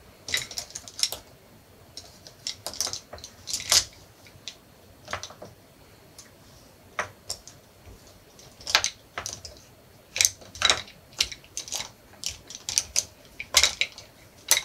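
Irregular light clicks and taps in small clusters with short pauses between: makeup brushes and an eyeshadow palette being handled on a tabletop.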